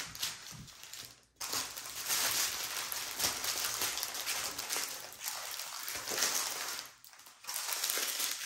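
Small plastic bags of diamond-painting drills crinkling as they are handled, in long stretches broken by short pauses about a second in and again near the end.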